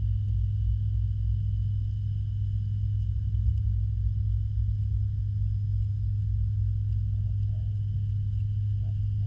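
Pond filter pump humming steadily, heard underwater as a constant low hum and rumble with a few faint short blips near the end.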